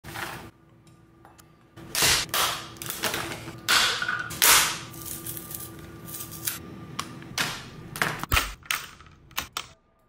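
Plastic cyberdeck case being pried apart with a metal scraper: a long run of sharp cracks and snaps as the plastic breaks, the loudest about two and four and a half seconds in, with clicks and clatter from the keyboard parts.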